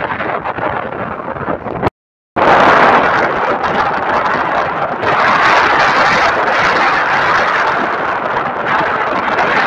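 Outdoor wind buffeting the microphone, a steady rushing noise. About two seconds in it drops out to silence for a moment, then comes back louder.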